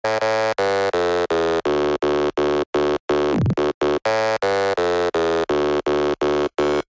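Electronic music: a buzzy synth chord chopped into short, even pulses about three times a second, with a falling sweep about halfway through.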